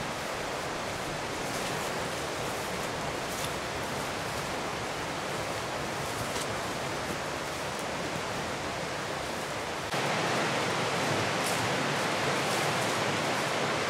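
River rapids rushing: a steady noise of fast-flowing water that gets louder about ten seconds in.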